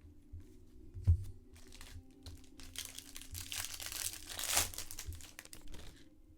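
A knock about a second in, then a trading-card pack's foil wrapper being torn open and crinkled for about three seconds.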